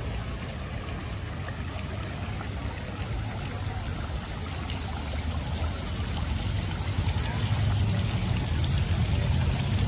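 Water splashing and trickling from a tiered stone fountain into its basin: a steady rush that grows louder in the second half, with a low rumble underneath.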